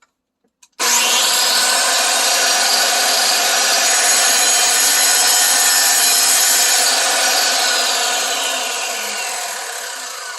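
Wet-or-dry power cutter running and cutting into a crystal-bearing rock, run dry without water. It bites in abruptly about a second in and holds a steady loud grinding whine, then eases off over the last few seconds.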